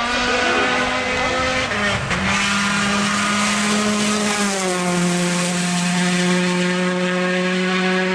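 Rally car engine running hard at high revs as the car passes on a dirt stage. The engine note steps down twice, about two seconds in and again near the middle, then holds steady.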